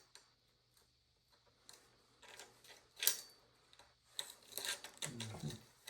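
Faint metallic clicks and light rattling of a saw chain and guide bar being handled and fitted onto a chainsaw, with one sharper click about three seconds in and a brief cluster of clatter near the end.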